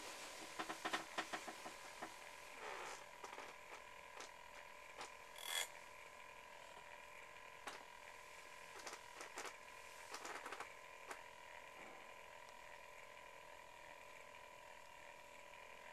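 Quiet interior room tone with a steady faint tone underneath and scattered faint clicks and creaks. There is a cluster of clicks in the first second or so, a slightly louder short rustle about five and a half seconds in, and more clicks around ten seconds in. These are typical of handling and footstep noise as the camera is carried through the motorhome.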